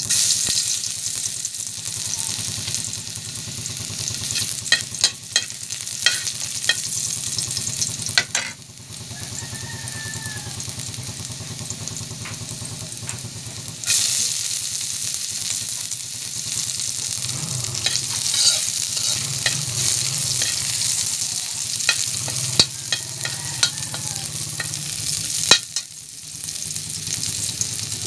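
Chopped garlic and onion sizzling in hot oil in a wok, stirred with a metal spatula that clicks and scrapes against the pan. The sizzle grows louder about halfway through.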